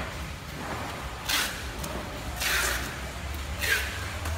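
Plastic fruit crates being handled and moved on a concrete floor: three short scraping noises over a steady low hum.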